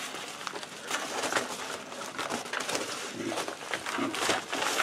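Paper padded mailing envelopes rustling and crinkling as they are picked up and moved about, with a few light knocks.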